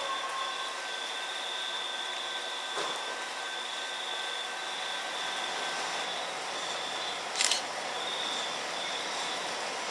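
Y168, a diesel locomotive, approaching from a distance along the line: a steady even run of engine and rail noise with a faint high whine that comes and goes, and one sharp click about seven and a half seconds in.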